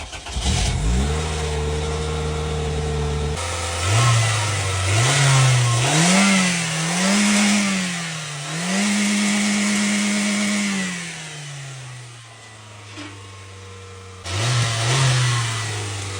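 A Chevy Prizm's Toyota Corolla four-cylinder engine cranks briefly and fires up, settles into an idle, then is revved hard several times. It is held high near redline for a couple of seconds, falls back to idle, and is blipped once more near the end.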